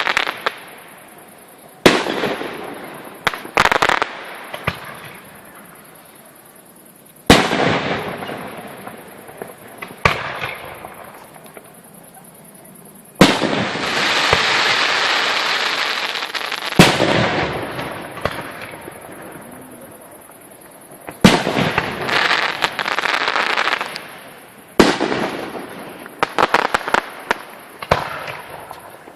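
Aerial fireworks shells bursting with sharp, loud bangs a few seconds apart, about ten in all. Each bang trails off in crackling and fizzing, with one longer stretch of dense crackle in the middle.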